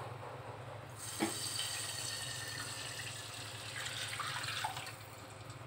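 Water poured from a tumbler into a stainless steel pressure cooker, splashing onto the pan's base. It starts about a second in with a light knock and runs for about four seconds.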